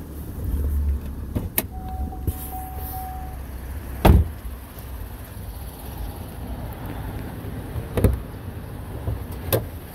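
A 2013 Chevrolet Camaro LT's V6 idling with a steady low rumble. A car door shuts with a thud about four seconds in, after a click near the start. Two sharp clicks near the end come from the hood latch being released and the hood raised.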